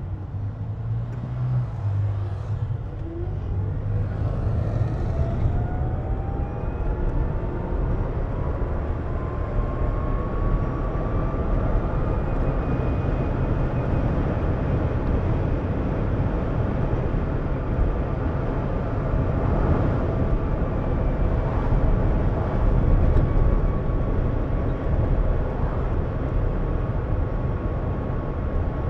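Renault Twizy's electric drive motor whining, rising in pitch as the car gathers speed and then holding steady, over a constant rumble of tyres on the road. The whine sounds like a jet engine spooling up.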